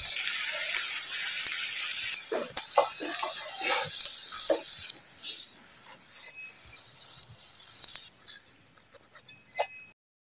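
Egg-coated shami kebabs frying in a pan of oil: a strong sizzle for the first two seconds, then a quieter sizzle with a few short clatters, cutting off abruptly near the end.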